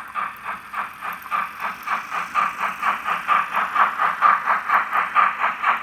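Model BR 50 steam locomotive's sound decoder playing steam-exhaust chuffs through a small loudspeaker, in an even beat of about five chuffs a second that grows a little louder. The sound is thin, with hardly any bass.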